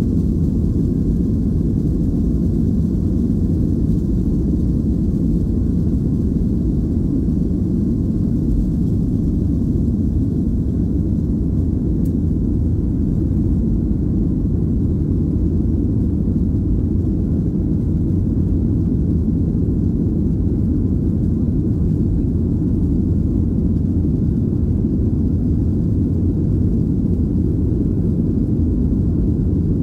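Boeing 737-800's CFM56-7B turbofan engines at takeoff thrust, heard inside the cabin as a steady low rumble through the end of the takeoff run, liftoff and initial climb.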